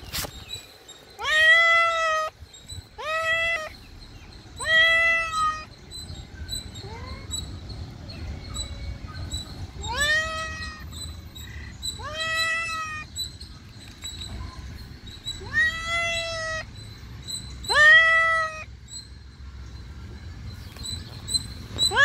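A white-and-tabby domestic cat meowing repeatedly: seven loud meows, each sliding up in pitch at the start and then holding. The first three come a second or two apart, and the last four follow after a pause of about four seconds.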